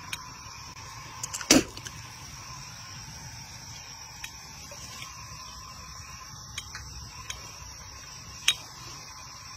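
Insects drone steadily from the waterside vegetation. About a second and a half in comes one sharp swish as the float-fishing pole is swung out to cast, and a few light clicks follow later.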